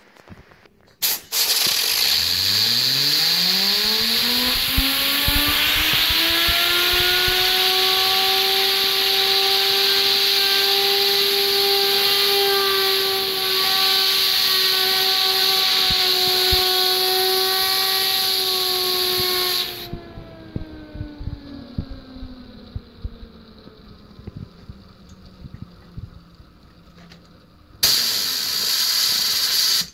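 Compressed-air blow gun hissing loudly as its jet drives a fidget spinner up to high speed; the spinner's whine rises quickly in pitch over the first few seconds and then holds steady. When the air cuts off, the whine slowly falls as the spinner coasts down, and a second short blast of air comes near the end.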